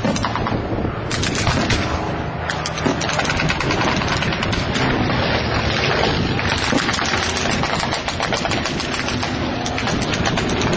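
Airshow pyrotechnic charges going off in rapid, continuous strings of bangs that simulate machine-gun fire, with an engine running underneath.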